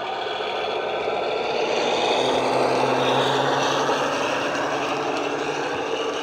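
Sound decoder in a Dapol model Class 52 Western diesel-hydraulic locomotive playing the SWD engine sound through its EM1 speaker as the loco passes. It is a steady low engine hum that grows louder and then eases off.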